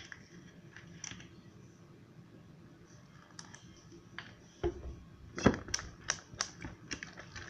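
Slime being stirred in a bowl with a spatula as the borax activator is mixed in, turning the glue mixture into slime. There are a few faint ticks at first, then from about halfway a run of sharp, sticky clicks.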